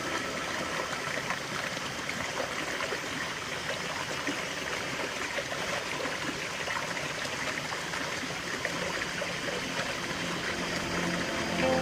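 Running water of a stream, flowing steadily with no music over it.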